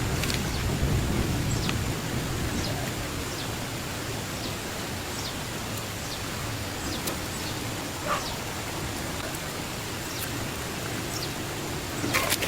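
Steady hiss-like outdoor background noise with faint, short, falling bird chirps every second or so, and a quick run of sharp clicks near the end.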